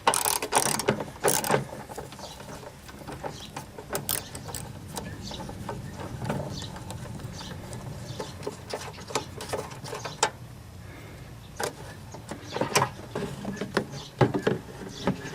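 Irregular clicks and knocks of hand tools and plastic parts being handled in an engine bay, with clusters of sharper knocks at the start and again near the end.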